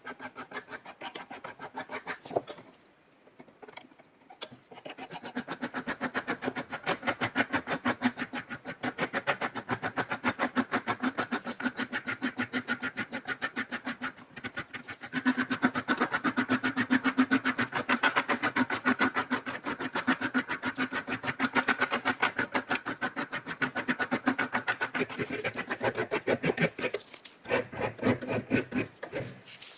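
Quick, even back-and-forth scraping strokes of hand abrasion on an old rusty hammer, working off its rust. They stop briefly about three seconds in and grow louder about halfway through.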